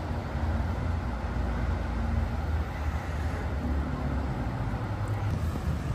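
Road traffic passing over the bridge, a steady low rumble.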